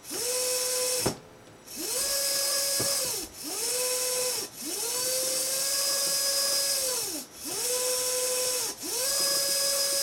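Small VEX DC motor under Arduino PWM speed control, repeatedly spinning up to a steady whine and winding down again as the joystick is pushed and released. There are about six runs of one to two and a half seconds each, with short pauses between, the longest about a second in.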